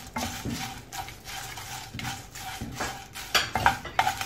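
A wooden spatula stirring whole dried spices (red chillies, coriander seeds, peppercorns, cumin) around a non-stick pan as they roast for masala powder. The strokes are short, rustling and scraping, with a few louder strokes about three and a half seconds in.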